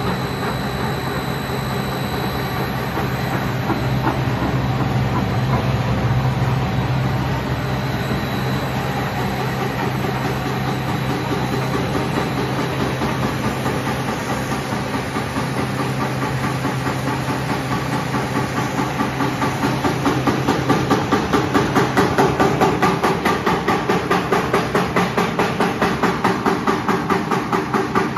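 Twin-screw food extruder and snack production line running with a steady machine hum. From about twenty seconds in, a fast, even chopping pulse of about three beats a second comes in as the cutter at the end of the line cuts the extruded corn sticks.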